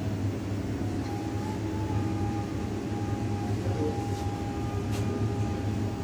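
Steady low machine hum.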